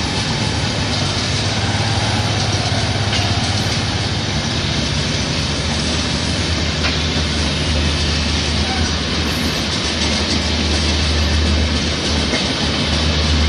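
Indian Railways LHB air-conditioned passenger coaches passing at speed: a steady rush of steel wheels on rail, with a low rumble that grows a little stronger near the end.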